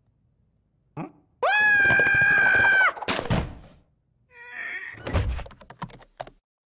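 A cartoon character's high-pitched scream. It rises briefly, then holds on one pitch for about a second and a half. A few thumps and clatters follow, the heaviest about five seconds in.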